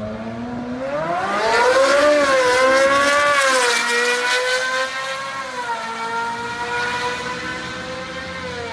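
Ferrari 458 Speciale's V8, fitted with aftermarket headers and a cat bypass, launching at full throttle and pulling up through the gears. Its pitch climbs, dips briefly at each upshift, then holds high and fades as the car runs away down the strip.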